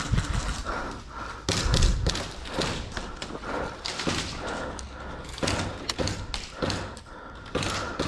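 Irregular thuds and sharp taps at close quarters during airsoft play, the heaviest thuds near the start and about two seconds in.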